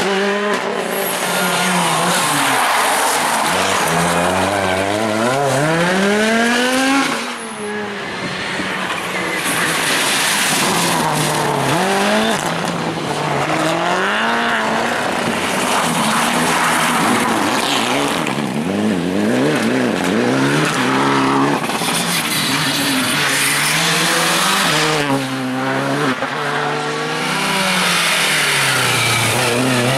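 Rally car engines at full throttle, their pitch climbing and then falling back again and again as they accelerate and change gear or lift, with tyres squealing. The sound breaks off abruptly about seven seconds in and picks up again with another run.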